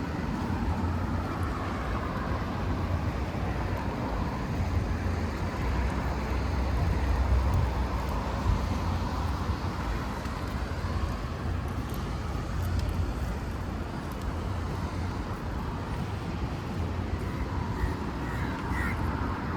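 Steady outdoor rain ambience: a constant wash of rain and water noise over a low rumble, with no distinct events.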